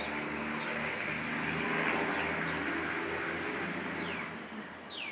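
A passing engine with a steady hum that swells and then fades. Near the end come a few quick, high, downward-sweeping bird chirps.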